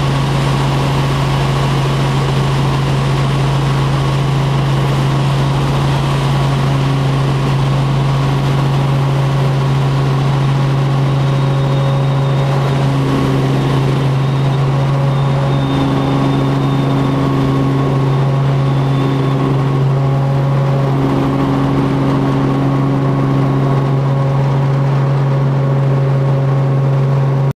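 Helicopter in flight heard from inside the cabin: a steady, loud drone of engine and rotor with a strong low hum and fainter higher tones. It cuts off suddenly at the end.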